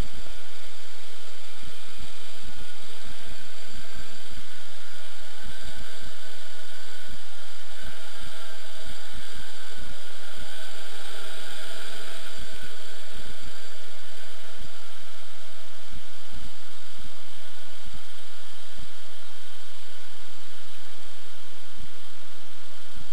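Multirotor octocopter's eight electric motors and propellers buzzing in flight overhead, the pitch wavering up and down as the throttle changes. Frequent low buffeting thumps on the microphone run beneath it.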